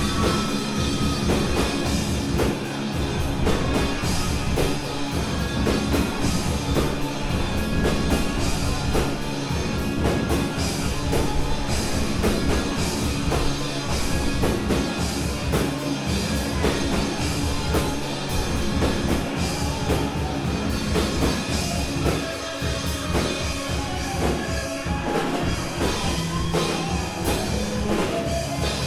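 Live rock band playing: drum kit keeping a steady beat under electric guitar and an analogue synthesizer, with the room's ambience of a recorder at the back of the club.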